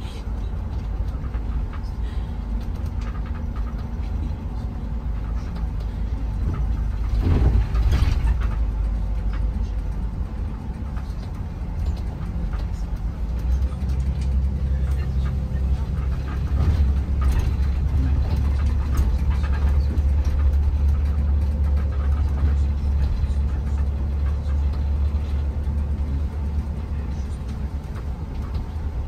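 Shuttle bus driving: a steady low engine and road rumble, with a brief louder swell about seven seconds in, and the low hum growing heavier about halfway through.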